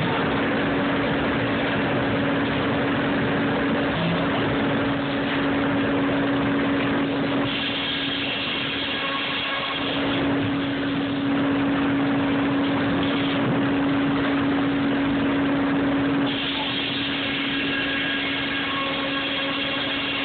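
Sawmill's large circular head saw and top saw running and cutting a log as it rides through on the carriage: a steady machine hum under a dense wash of cutting noise. A higher-pitched whine joins in twice, for a few seconds each time, about a third of the way in and again near the end.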